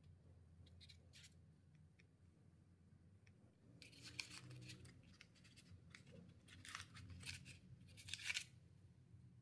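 Food preparation by hand: three short clusters of crisp, scratchy strokes about four, seven and eight seconds in, the last the loudest.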